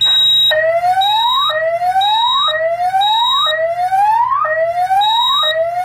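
EST fire alarm voice-evacuation speaker sounding the whoop alarm tone between evacuation announcements: a sweep rising from low to high, repeated about once a second, five times. A high steady alarm tone sounds alongside and breaks off briefly at each new sweep.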